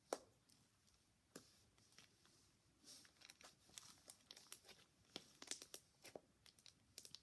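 Faint, irregular clicks and crackles of slime being stretched and squished by hand, with small air pockets popping.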